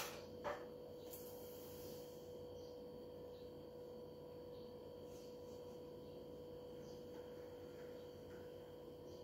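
Faint, steady electrical hum with one clear steady tone, and two light clicks just at the start.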